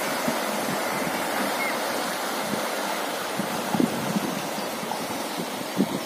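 Fast river current rushing steadily over a shallow riffle, with a couple of brief knocks in the second half.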